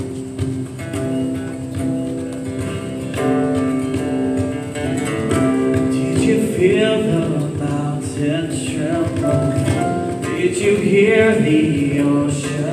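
Live worship band music: keyboard and acoustic guitars playing held chords, with voices singing that come in more strongly about halfway through.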